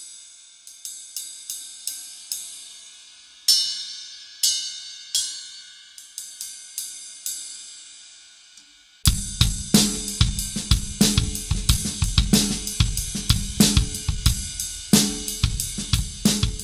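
1970s Zildjian A 22-inch ride cymbal played with a stick in a steady pattern on its own, its wash ringing between strokes, with two louder strokes about four seconds in. About nine seconds in, the rest of the drum kit joins: bass drum and snare play a groove under the ride.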